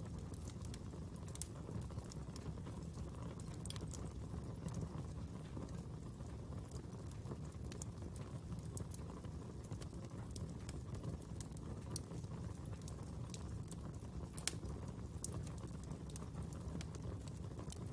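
Fire crackling: irregular sharp pops and snaps over a low steady rumble of the flames.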